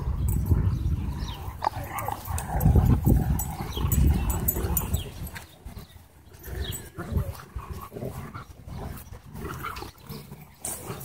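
Two dogs, a German shorthaired pointer and a young Doberman, growling and scuffling as they play tug-of-war with a rope toy. The sound is loudest for about the first half, then drops to quieter scattered noises.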